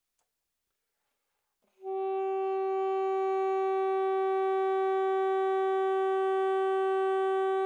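Alto saxophone playing one long, steady held note, starting about two seconds in and lasting about six seconds.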